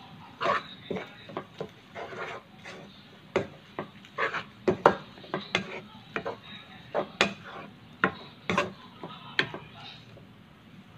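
Wooden spatula clacking and scraping against a nonstick wok while stir-frying noodles: irregular sharp knocks, several a second, thinning out near the end.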